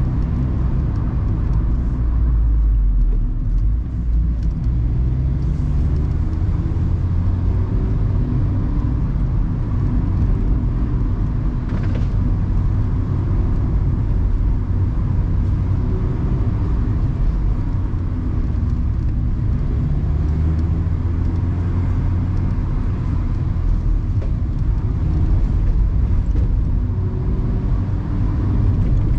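Mazda ND Roadster's four-cylinder engine running as the car is driven along a winding road, its note rising and falling with the throttle. Wind and road noise from the open cockpit lie under it.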